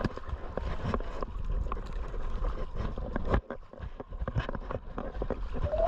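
A camera carried on a dog jostles as she trots on the beach: irregular knocks and rubbing, with wind rumbling on the microphone. A rising electronic tone starts right at the end.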